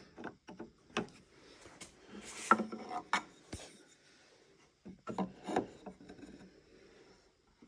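Wooden table pieces being handled and fitted together: a series of irregular light knocks and clicks, with a brief scrape of wood rubbing on wood a couple of seconds in.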